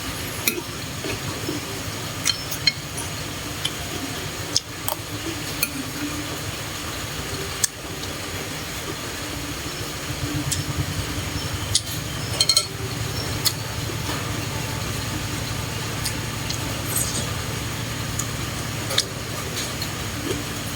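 Eating utensils clinking against dishes about a dozen times at irregular intervals, with a quick cluster of clinks about halfway through, over a steady low hum.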